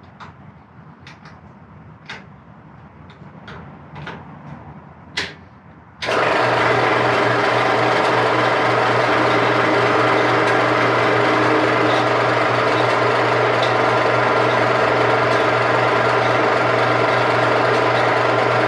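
A few light clicks and knocks, then about six seconds in a Central Machinery 4x6 horizontal/vertical metal-cutting bandsaw's electric motor switches on and runs steadily with a hum, starting up for the first time after assembly.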